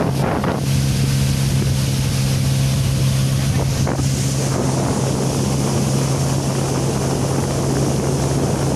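Speed boat's outboard motor running steadily at speed, a constant engine drone over a continuous rush of wind and water noise.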